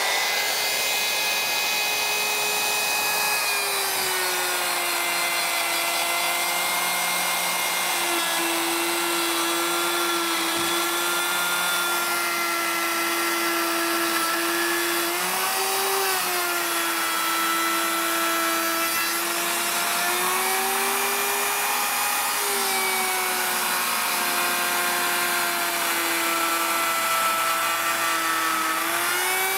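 Handheld electric router cutting a 3/4-inch dado across a wooden board. It runs as a steady high motor whine over the rush of the bit in the wood, its pitch dipping slightly and recovering now and then as the load changes.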